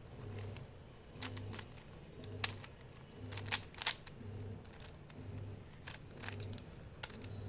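Plastic 3x3 Rubik's cube being turned quickly by hand, its layers giving a scattered series of sharp clicks and clacks, with a faint low hum pulsing about twice a second underneath.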